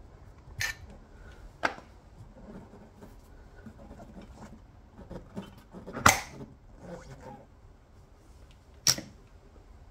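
Handling noise from a mushroom-plug insertion tool on a car tyre tread as its nozzle is worked and pulled out of the puncture: four sharp clicks and knocks, the loudest about six seconds in.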